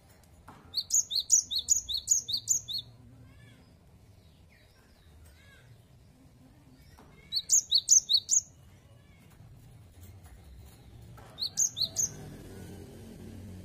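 Cinereous tit (gelatik batu) singing its two-note 'wu-cit wu-cit' phrase in three rapid bouts. Each bout alternates a higher and a lower note; the first bout is the longest and the last is the shortest.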